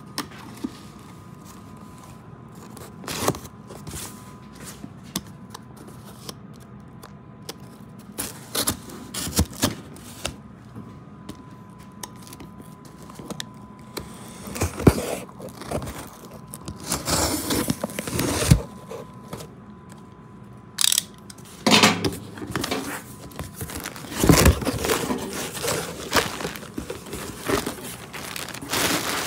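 A shipping package being opened by hand: tape tearing, packaging scraping and crinkling in irregular bursts separated by quieter gaps, busiest in the second half.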